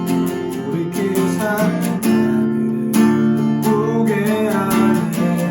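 Acoustic guitar strumming chords as accompaniment to a sung worship song, with a voice singing the melody over it.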